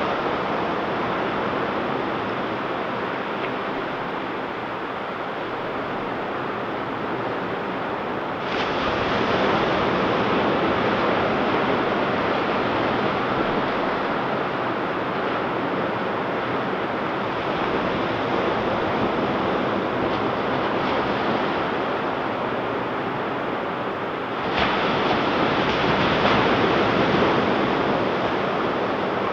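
Ocean surf washing steadily onto a beach, with a wave breaking suddenly and louder about a third of the way in and another near the end, each slowly easing off.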